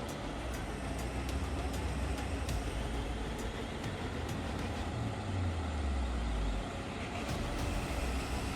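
Heavy excavator's diesel engine running steadily with a low rumble. About five seconds in, its low drone sinks in pitch and then drops away.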